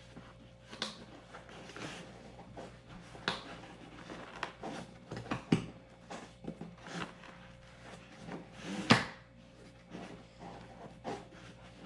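Packaging being handled on a tabletop: scattered knocks, taps and rustles of cardboard and plastic, with a sharper knock about nine seconds in.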